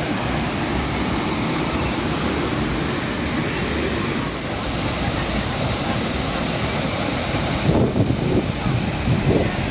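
Waterfall's steady rush of falling water, heard close up.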